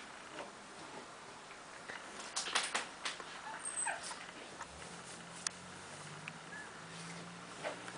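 Two chihuahuas play-wrestling on couch cushions: soft scuffling with a few sharp knocks about two and a half to three seconds in, and a low steady dog growl in the second half.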